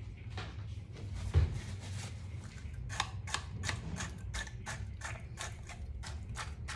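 A quick run of sharp taps or clicks, about three a second, starting about three seconds in, over a low steady hum.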